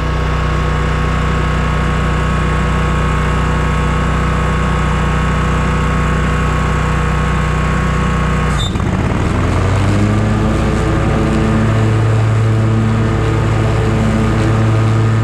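Scag Tiger Cat zero-turn mower's engine running steadily while mowing with its 61-inch deck. About two-thirds of the way in there is a brief click and the engine note changes.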